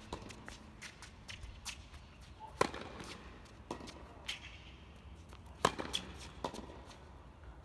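Tennis rally on a hard court: sharp pops of racket strings striking the ball, the loudest about two and a half seconds in and again near the middle, with softer ball bounces between them.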